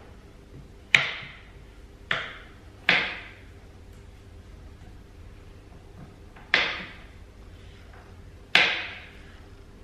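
Kitchen knife chopping raw carrot on a wooden cutting board: five loud, sharp cracks at uneven intervals, each with a short ringing tail.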